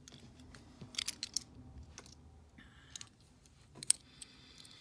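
Small Matchbox die-cast metal toy cars clicking and clinking as they are handled and set down. A few quick clicks come about a second in, and one louder click comes near the end.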